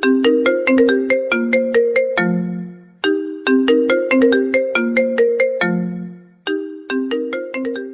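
Mobile phone ringtone tune: a quick melody of short, fast-fading notes played as a loop, the phrase starting over about every three seconds and ending on a low held note.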